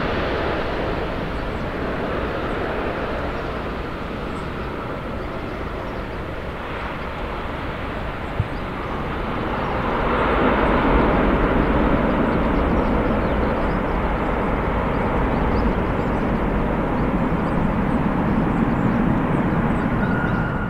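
Boeing 777 jet engines rushing steadily as the airliner touches down and rolls out, growing louder about ten seconds in. There is a single sharp click a little past eight seconds.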